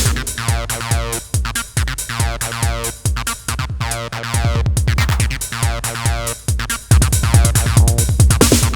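Electronic acid house: a Behringer RD-9 drum machine (a TR-909 clone) plays a steady house beat under a Behringer TD-3 (a TB-303 clone) playing a sequenced acid bassline. The heavy low kick is weaker through the middle and comes back in strongly near the end.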